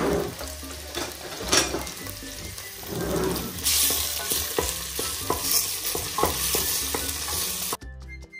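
Prawn heads and shells sizzling in olive oil in a stainless steel stockpot, stirred with a wooden spoon that scrapes and knocks lightly against the pot. The sizzle gets louder about halfway through, then cuts off suddenly near the end, giving way to background music.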